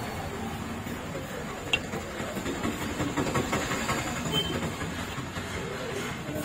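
Steady low mechanical rumble, engine-like, with one sharp tap a little under two seconds in.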